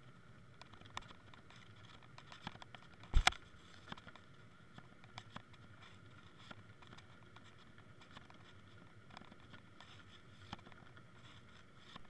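Underwater sound picked up by a camera rig dragged over a sandy seabed: a faint steady hum with scattered small clicks, and one loud double knock about three seconds in.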